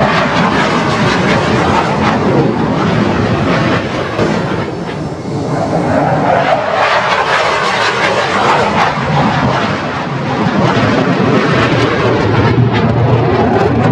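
Chengdu J-20 stealth fighters flying past in formation: a loud, continuous jet roar with a deep rumble that swells and eases slightly.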